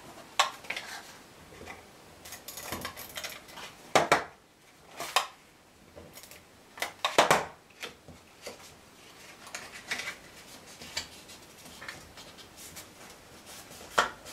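Kraft cardstock box being folded and pressed shut by hand on a crafting mat: scattered rustles, rubbing and taps, with a few sharper clicks spread through.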